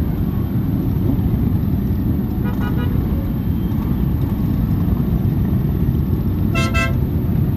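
Motorcycle engines running as a line of bikes rides past, with a horn giving short beeps about two and a half seconds in and a louder double beep near the end.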